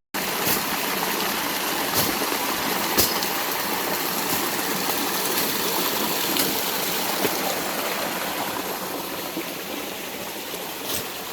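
Waterfall, a steady rush of falling water that starts abruptly and eases a little toward the end, with a few faint clicks about two and three seconds in.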